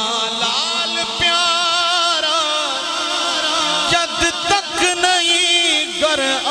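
A male naat reciter singing unaccompanied-style melismatic phrases in long, wavering held notes with heavy vibrato, over a steadier lower held tone.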